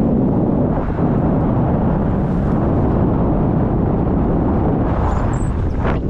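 Steady low rush of wind buffeting an action camera's microphone on a selfie stick, from the airflow of a tandem paraglider in flight.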